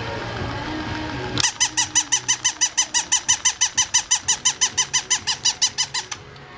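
Battery-powered plush toy chihuahua: its walking motor whirs, then about a second and a half in it starts a fast, even run of high electronic yips, about six a second, which stops shortly before the end.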